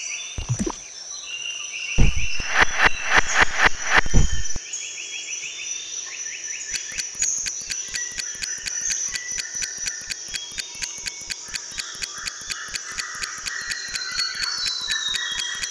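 Sound-effect bed of crickets chirping and birds calling. Early on comes a run of about eight loud strokes as the bag's contents are poured out, then a fast, even clock ticking joins the crickets as the clock hand sweeps round.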